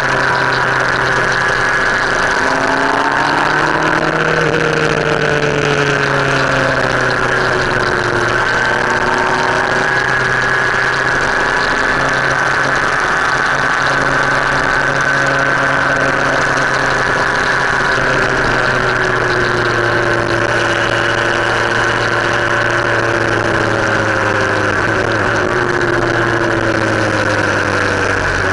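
Motorcycle engine running on the move, its pitch rising and falling several times with throttle and gear changes, over steady road and wind noise.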